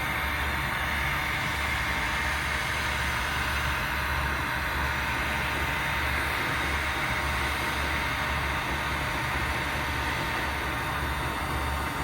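Steady mechanical hum with an even hiss and a faint steady whine, unchanging throughout.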